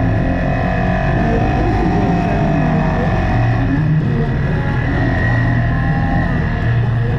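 CFMOTO CForce 600 ATV engine running steadily while riding, with music with Spanish vocals playing over it.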